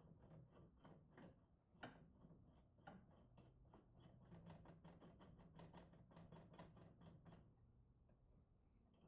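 Very faint, quick clicks and light taps, several a second with a few louder single clicks, over a faint steady low hum.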